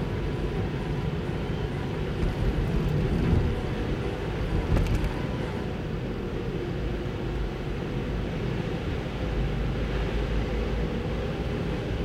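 A car's steady road and engine rumble heard from inside the cabin as it drives along wet asphalt, with a couple of brief jolts about three and five seconds in.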